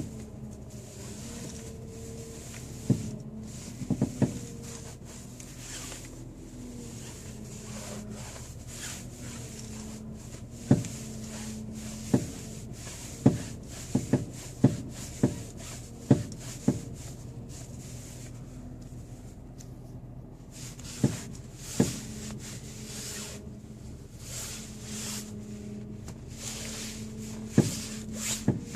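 Alfa Romeo 159 at idle with a steady hum, over which come about fifteen sharp knocks at irregular intervals, several in quick clusters. The owner traces the knock to the steering wheel.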